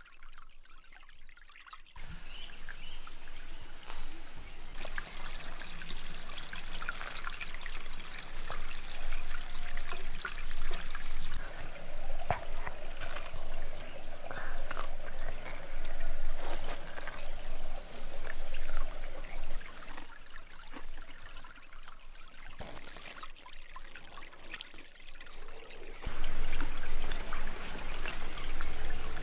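Shallow stream running over stones, a steady trickle and splash of water that comes in about two seconds in and carries on, rising and falling slightly.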